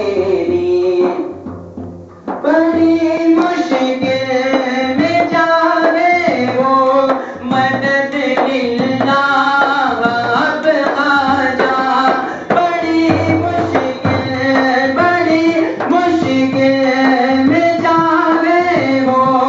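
Male voice singing a manqabat, a Sufi devotional song, with a hand-struck frame drum (daf) keeping a steady beat. The singing breaks off briefly about two seconds in, then resumes.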